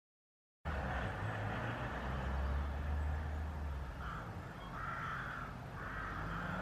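A domestic black cat gives a few short, rough meows, one after another, from about four seconds in. Steady outdoor background noise with a low rumble starts suddenly just after the beginning.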